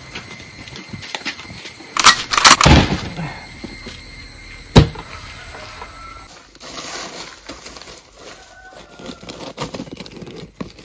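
A plastic ice chest handled and set down: several heavy knocks about two seconds in and a sharp click a little later, then the lid is opened and hands rustle and crunch through crushed ice.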